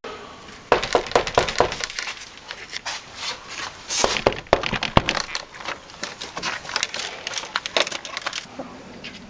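Repeated irregular knocking and rattling on a glass-paned door, with sharp clinks.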